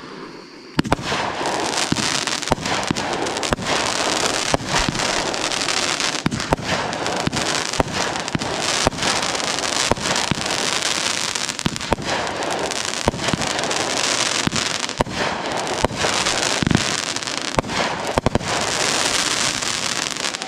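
Aerial fireworks going off in a dense, continuous barrage: many sharp bangs and pops over a steady hiss, starting about a second in.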